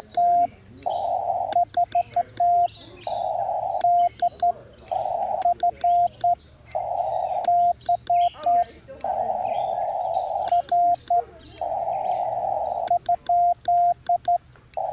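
Morse code (CW) from a portable QRP ham transceiver: a single-pitch tone keyed in short groups of dits and dahs every couple of seconds, with the receiver's narrow-filtered band hiss filling the gaps. Birds chirp faintly in the background.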